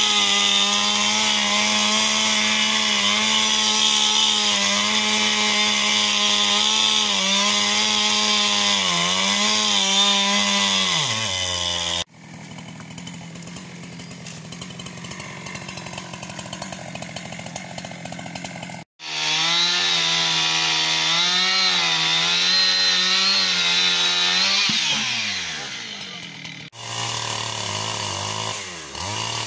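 Chainsaw running at high speed, its pitch sagging as it bites into wood, then winding down as the throttle is let off. After a quieter noisy stretch, the saw runs and winds down again, and a lower engine note rises near the end.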